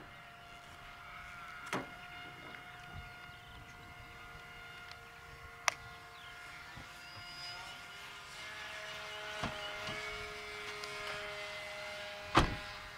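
Electric motor and propeller of a radio-controlled model plane whining in flight, the pitch easing down a little about eight seconds in. A few sharp knocks cut through, the loudest near the end.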